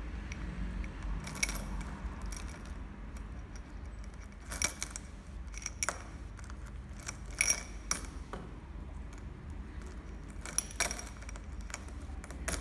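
Coins clinking against one another and against a small glass bowl as a sun conure picks through them with its beak: short, sharp metallic clinks coming every second or two, some in quick pairs.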